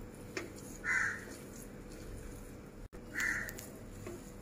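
A crow cawing twice, two short harsh calls a little over two seconds apart.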